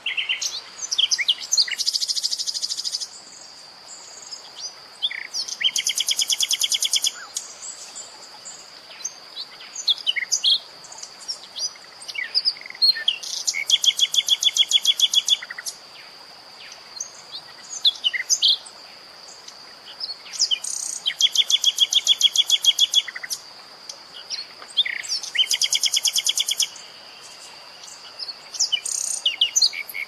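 Common nightingale singing: several phrases of fast, evenly repeated notes, each a second or two long, with short single whistles between them. A steady high tone runs underneath.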